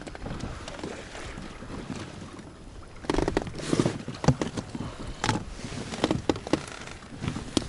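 Scattered knocks and clicks of gear being handled in a small boat, with a denser stretch of rustling and knocking about three seconds in.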